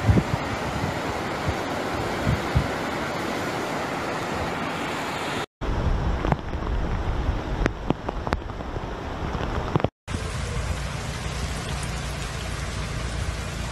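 Steady rushing of fast-flowing muddy floodwater, mixed with wind. It comes in three short clips, broken by two brief dropouts about a third and two thirds of the way through.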